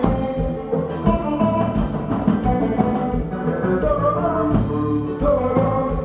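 Live band playing: electric bass, drum kit and congas with a steady beat, and a voice singing over them.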